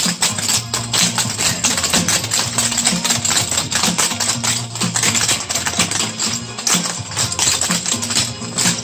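Cloggers dancing in a group: a rapid, dense clatter of clogging taps on a hard floor, over music with a bass line.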